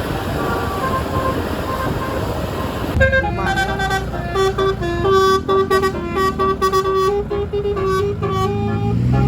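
Indonesian telolet bus horn, a 12-note set of roof-mounted air-horn trumpets, playing a quick tune of short notes that comes in clearly about three seconds in, after a noisier stretch with faint tones. A low engine sound rises near the end.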